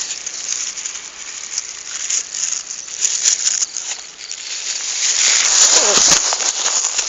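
Continuous rustling and crackling of a bag being carried and jostled, growing loudest about five to six seconds in, with a short falling tone near six seconds.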